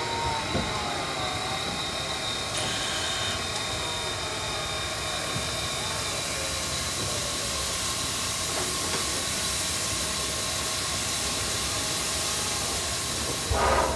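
C57 1 steam locomotive hissing steam steadily, with a short louder burst just before the end.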